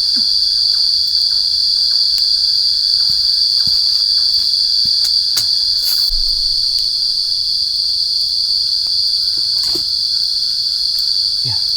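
Loud, steady, shrill drone of a forest insect chorus, unbroken throughout, with a few faint scattered clicks and taps beneath it.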